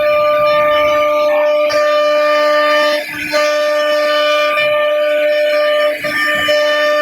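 CNC router spindle running with a steady high whine while machining wood, briefly dipping twice.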